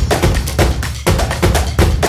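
Background music with a fast, steady percussive beat and heavy bass.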